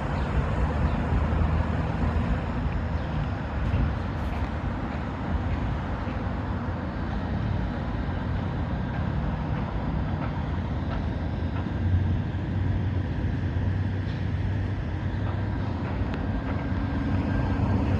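Steady city traffic rumble, with a low engine hum that grows a little stronger about two-thirds of the way through.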